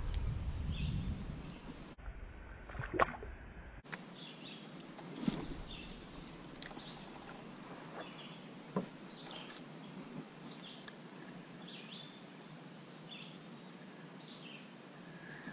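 Quiet open-air ambience with birds calling over and over in short chirps, and a few light knocks, the loudest about three and five seconds in.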